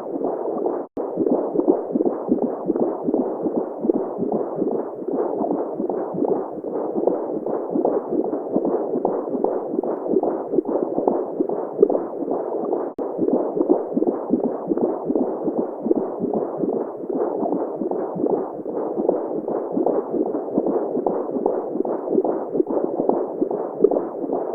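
Simulated womb sounds for baby sleep: a steady, muffled whooshing noise with no high hiss, carrying a heartbeat-like throb. It drops out for an instant about a second in and again about halfway through.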